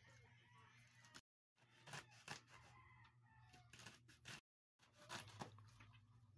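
Faint knife cuts through a bundle of raw green beans on a cutting board: a series of irregular crisp chops, over a low steady hum. The sound drops out completely twice.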